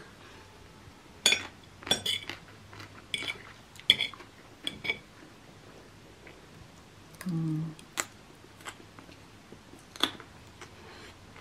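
A metal fork clinking and scraping against a ceramic plate of fried rice vermicelli, in a string of short sharp clinks, with chewing between them. A brief low hum comes about seven seconds in.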